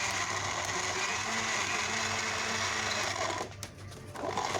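Electric kitchen blender running, chopping garlic and betel leaves in water into a pulp; the motor dips briefly about three and a half seconds in, then runs on.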